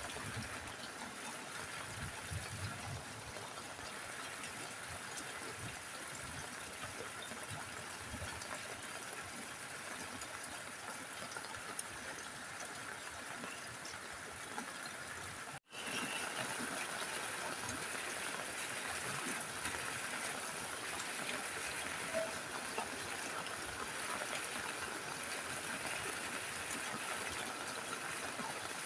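Steady rain falling on a roof: a dense, even hiss with scattered small drop ticks. It cuts out abruptly for a split second a little past halfway, then carries on slightly louder.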